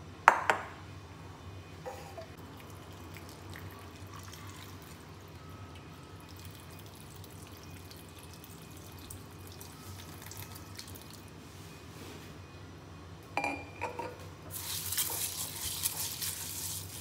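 Mixed dal being rinsed by hand in a glass bowl of water. There is a sharp glass clink right at the start. Near the end comes a few clinks and then continuous splashing and swishing as the hand rubs the lentils in the water.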